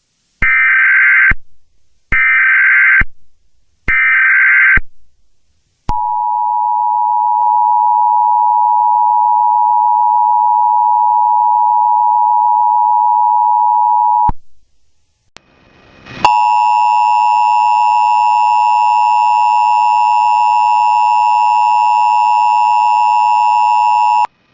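Emergency Alert System tones. First come three short data bursts of the SAME digital header, then the two-tone attention signal held steady for about eight seconds. After a short gap, a harsher steady tone with many overtones sounds for about eight more seconds. Together they open an Amber Alert (child abduction emergency) broadcast.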